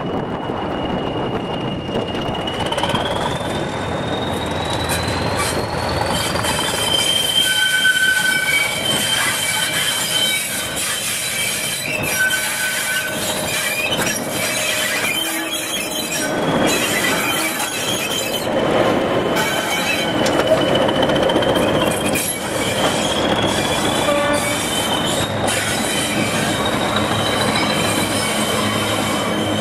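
English Electric Class 20 diesel locomotive moving off and running past under power. Its engine's high turbocharger whistle rises in pitch twice as the engine works harder.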